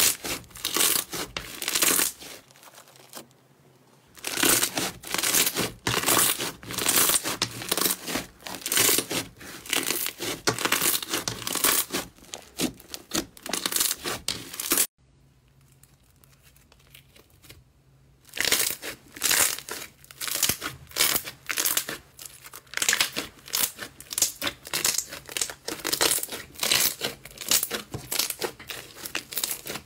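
Fluffy slime being squeezed, pressed and pulled apart by hand, giving rapid runs of crackles and tearing sounds in bursts. Two brief quiet gaps, one about three seconds in and a longer one around the middle.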